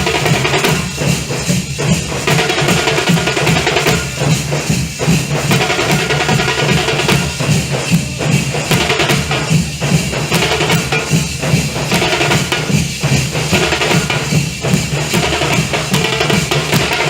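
Nasik dhol ensemble drumming: large barrel dhols and tasha drums beating a fast, dense rhythm without a break.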